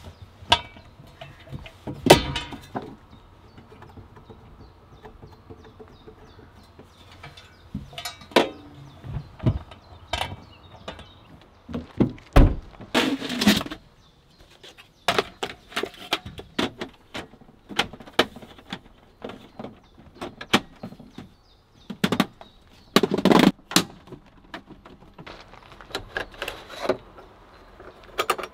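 Campervan being set up: scattered, irregular knocks, clunks and rattles of gear and fittings being handled, the loudest bangs about two seconds in and around twelve seconds in.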